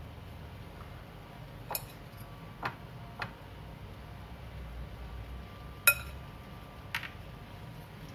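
A spoon clinking against dishes five times, the loudest about six seconds in, over a low steady hum.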